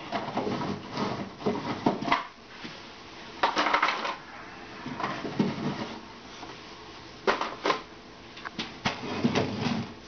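Wooden hive frames being slid out of their slots in a wooden hive box, with scraping and irregular knocks of wood on wood.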